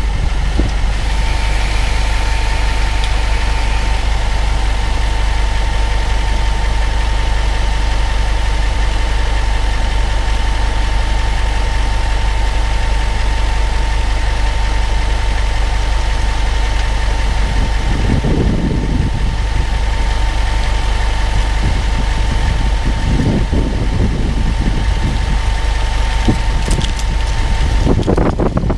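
2014 Range Rover Sport with the 4.4-litre SDV8 V8 diesel, running: a steady low rumble with a thin, steady higher tone over it and a couple of brief swells in the second half.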